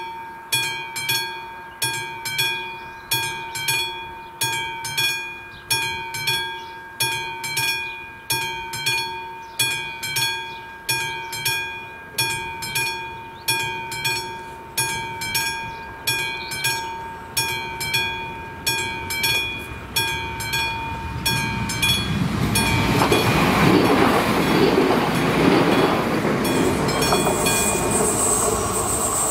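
Classic mechanical level-crossing warning bell ringing about once a second, each stroke a bright ringing clang. About 22 seconds in, a train runs over the crossing, its loud wheel rumble drowning out the bell, with a high wheel squeal near the end.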